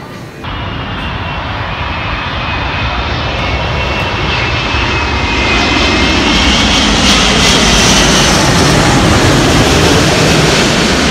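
Airbus A380 passing low overhead on its landing approach, gear down: the roar of its four jet engines begins about half a second in and builds to a peak as it passes, with a high whine above the roar.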